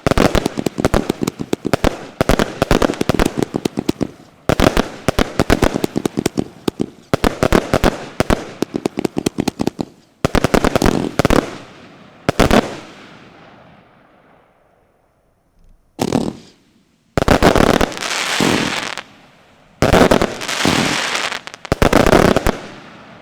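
Fireworks going off: rapid volleys of sharp bangs for about the first ten seconds, then a few single reports, then two bursts of crackling near the end.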